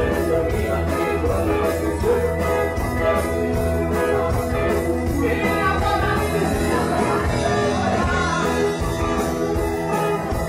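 Live rock band playing with a steady beat, electric bass and guitar under a male singer singing into the microphone.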